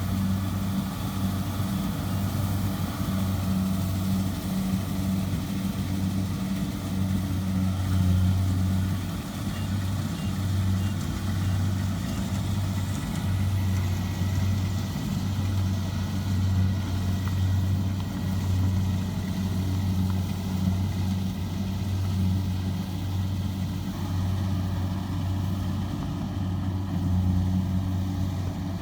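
Diesel engine of a Kubota DC70 combine harvester running steadily, a continuous low drone with small rises and dips in level.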